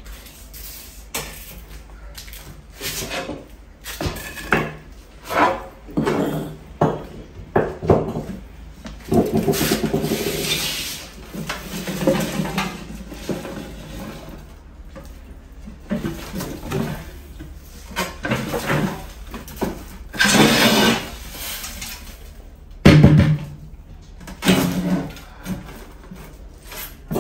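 Aluminium drink cans and a glass tank being handled: irregular knocks, clinks and clatters, with longer scraping stretches about a third and three-quarters of the way through.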